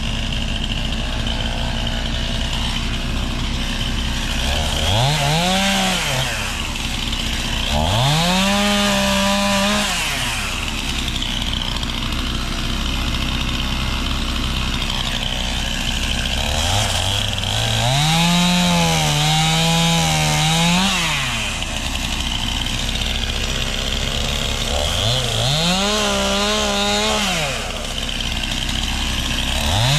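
Chainsaw cutting through pine limbs, revved up to full speed four times for two to four seconds each and dropping back to a low idle between cuts.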